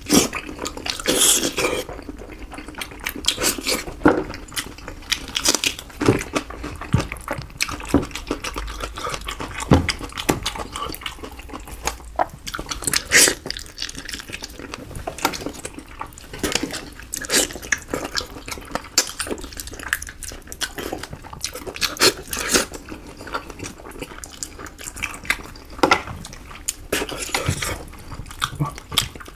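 Wet eating sounds close to the microphone: irregular lip smacking, sucking and chewing as meat and sauce are eaten off the bones of a tuna head.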